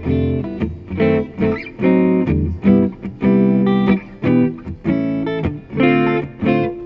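Gibson 2016 Les Paul '50s Tribute T electric guitar with 490R and 498T humbuckers, played clean through a Blackstar tube amp: a run of chords and notes struck one after another, each ringing briefly.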